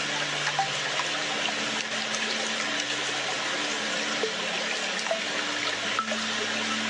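Small waterfall splashing: a steady rushing hiss of falling water with scattered small splashes.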